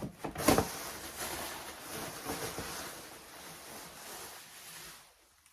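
Packaging rustling and crinkling as a boxed comforter set is handled and unpacked, with one louder crackle about half a second in, dying away near the end.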